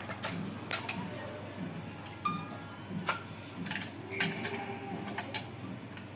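Scattered light clicks and metallic clinks from working a manual badminton stringing machine, with a short squeak a little over two seconds in, over a steady low hum.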